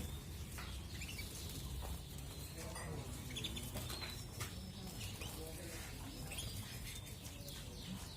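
Canaries chirping in short, scattered calls over a low background rumble.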